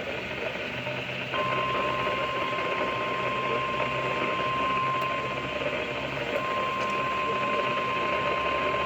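NOAA Weather Radio 1050 Hz warning alarm tone, one steady pure tone starting about a second and a half in, over receiver hiss. It is the alert tone of a weekly test and sets off tone-activated weather radio receivers.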